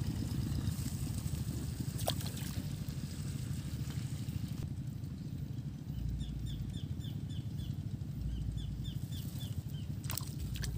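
A small engine drones steadily at a low pitch. In the second half a bird gives two quick runs of short, falling chirps. About ten seconds in comes a brief splash as a hooked fish breaks the water's surface.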